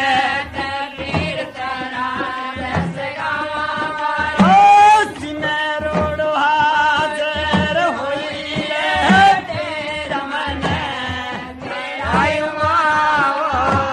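Men singing a Goga Ji devotional bhajan (a folk akhara song) in full, spirited voice, accompanied by hand drums beaten at a steady pace.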